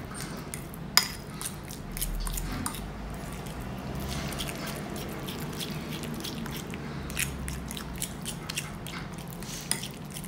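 A metal fork mashing and stirring soft cooked pumpkin in a ceramic bowl: wet squishing with repeated light clinks and scrapes of the fork against the bowl, the sharpest clink about a second in.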